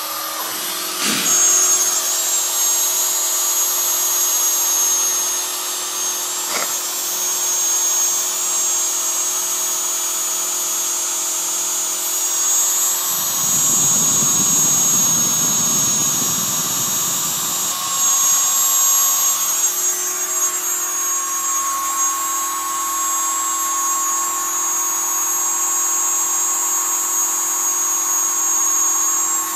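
Hobby CNC router's spindle running with a steady high whine while the machine works through its cutting program. A low rumble lasts about five seconds around the middle, and a pitch in the machine's hum changes shortly after.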